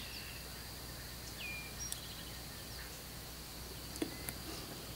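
Quiet outdoor ambience: a few short bird chirps over a steady, high, thin insect drone, with a couple of faint clicks near the end.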